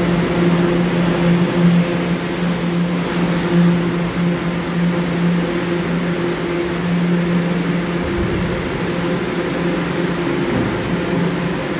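R46 subway car standing at an underground platform, its onboard equipment giving a steady electric hum with a low buzzing drone, which weakens briefly about eight seconds in.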